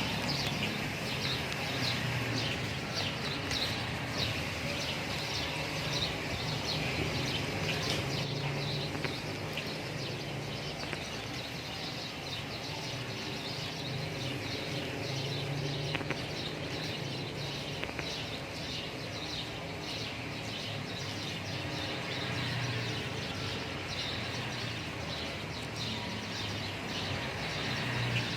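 Many small birds chirping rapidly and continuously, thicker in the first third and again near the end, over a steady low hum.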